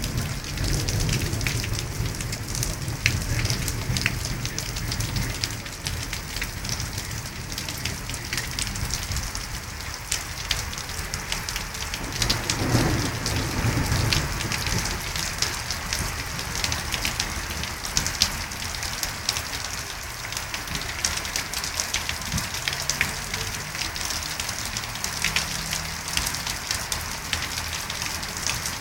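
Rain falling steadily, with many separate drops ticking through the hiss; a low rumble comes and goes near the start and again about twelve seconds in.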